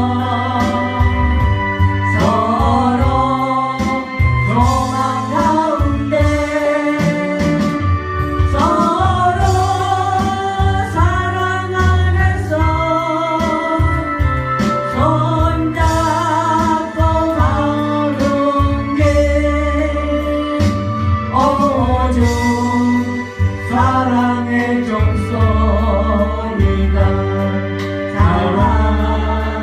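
A Christian hymn sung with instrumental accompaniment: a singing voice moving from phrase to phrase over a steady bass line.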